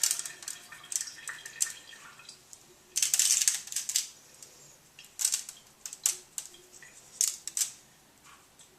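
Shaker of coarse Montreal steak seasoning shaken over a raw chicken, the granules rattling out in short, irregular bursts, with one longer shake about three seconds in.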